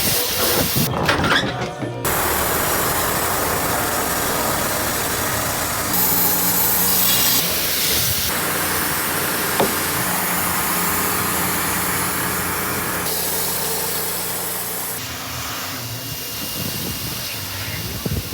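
An engine-driven saw cutting lengthwise through a Japanese maple log to slice off slabs, running steadily as it cuts. The sound changes abruptly several times.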